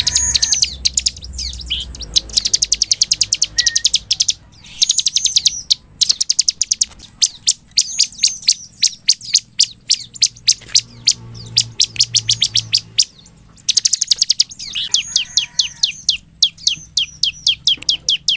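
Bar-winged prinia (ciblek) singing its fast 'ngebren' song: dense runs of sharp, high chipping notes, about eight to ten a second, in bursts of several seconds with short pauses between them.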